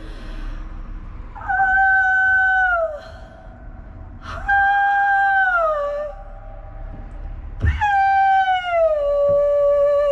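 A woman's voice singing long wordless notes: three held notes with short pauses between, each sliding down in pitch at its end.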